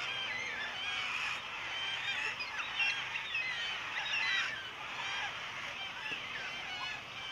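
A flock of birds calling all at once: a dense, steady chorus of many short overlapping calls.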